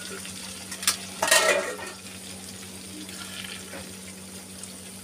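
Stuffed capsicums sizzling steadily in hot oil in a kadhai, with a metal spatula clicking and scraping against the pan about a second in.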